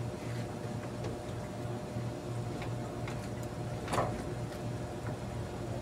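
A metal car radiator being handled and shifted, with small clicks and one sharp clank with a brief ring about four seconds in. Under it runs a steady low machine hum that pulses about twice a second.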